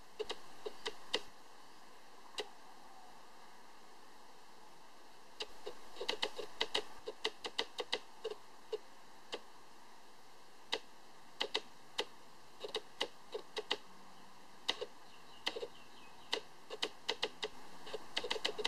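Irregular sharp clicks and taps, some in quick clusters, over a faint steady hiss.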